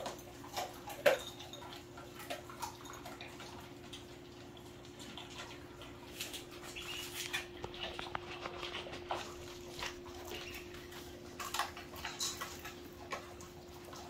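Dogs and a cat eating dry food from bowls: irregular short crunches and chewing sounds over a steady low hum.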